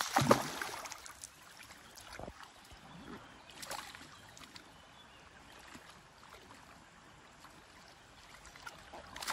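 Shallow river water splashing and trickling as barbel are handled and released from a submerged keep net: a loud splash at the start, then smaller splashes about two and four seconds in, with a low trickle between.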